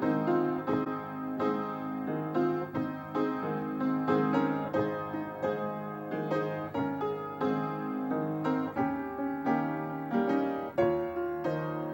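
Piano playing instrumental music, with notes struck in a steady, continuous flow and no singing.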